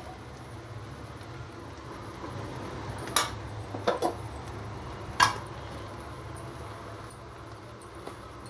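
A spatula scraping and knocking against an aluminium pot as cooked rice is tossed into stir-fried vegetables and egg for egg fried rice. Several sharp knocks, about a second apart, stand out over quieter scraping.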